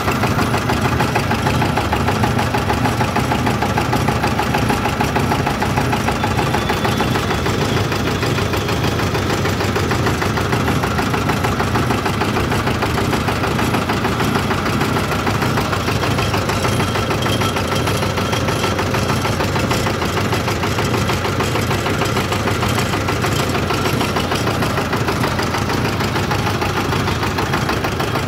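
Engine driving a sewaiyan (vermicelli) extruding machine, running steadily with a fast, even beat as the machine presses out strands of dough.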